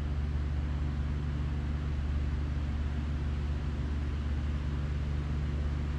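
Steady low hum of running machinery, with a faint hiss and no separate events.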